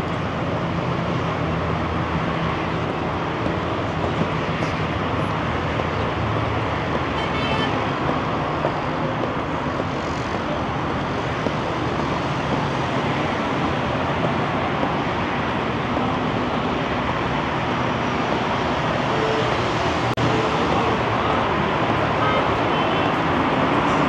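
Steady noise of expressway traffic, many cars passing continuously beneath a pedestrian bridge.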